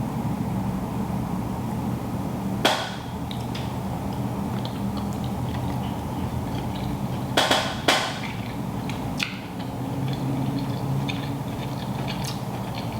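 Eating a seafood boil: a few sharp clicks and cracks, as from shells and utensils, spaced several seconds apart over a steady low hum.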